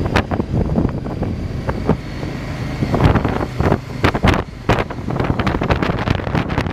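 Motorcycle running at road speed, its steady low engine note under heavy, irregular wind buffeting on the microphone.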